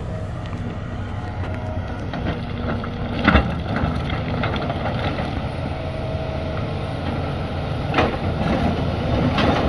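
Hitachi Zaxis 350 LCN excavator's diesel engine running steadily, with two loud sharp knocks, one about a third of the way in and another near the end.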